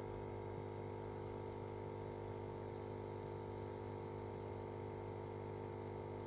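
Steady electric hum of an aquarium filter pump: a low drone with several fixed tones above it, unchanging throughout.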